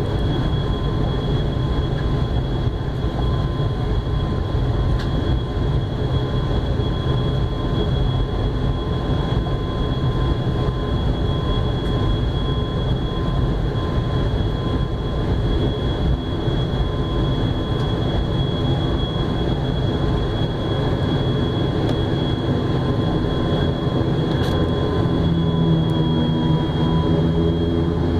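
Turboprop airliner taxiing, heard from inside the cabin: the engines run with a steady low rumble and a constant high whine. Near the end a deeper, pitched hum comes in as the engine note changes.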